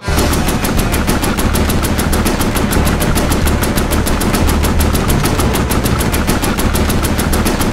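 Automatic machine-gun fire, a sound effect: one long, unbroken burst of about eight shots a second with a heavy low rumble underneath. It starts and stops abruptly.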